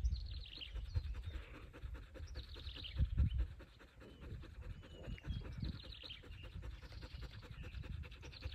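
Dog panting, with birds chirping over a low rumble that swells briefly about three seconds in.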